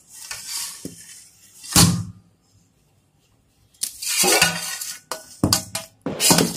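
Aluminium pot knocking and scraping against a stainless steel plate as it is turned upside down to release a steamed custard. A single loud knock comes about two seconds in, then after a short pause a run of metal-on-metal clatter and a few more knocks near the end.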